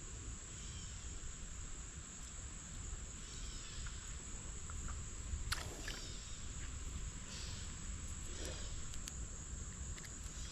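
Creekside ambience: a steady high-pitched insect drone over a low rumble, with one sharp click about five and a half seconds in.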